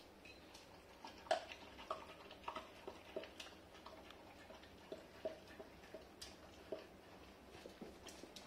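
Labrador eating from a stainless steel bowl: faint, irregular clinks of metal, about one or two a second, as it works the bowl.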